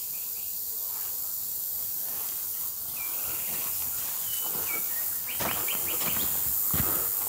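Outdoor woodland sound over a steady high hiss, with a few short bird chirps. From about halfway in, footsteps walk on a path of dry pine needles and stones.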